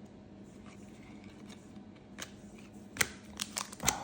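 Trading cards being handled and flipped through by hand: a few light clicks and slides of card stock, most of them in the last second.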